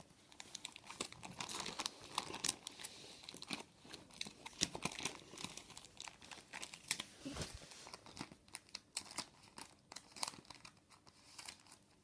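Clear plastic binder pages crinkling and crackling in many small, irregular rustles as trading cards are handled and slid into the pockets.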